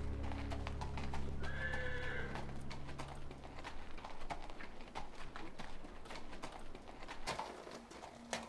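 A horse's hooves clip-clopping in an uneven walking rhythm as it is ridden, with a short whinny about two seconds in. A low musical drone fades out about four seconds in.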